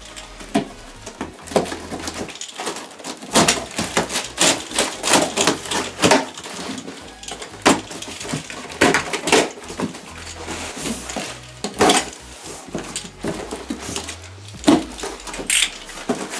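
Packing tape on a large cardboard box being slit with a box cutter and peeled off, an irregular run of crackling rips and scrapes as the tape and cardboard flaps are worked open.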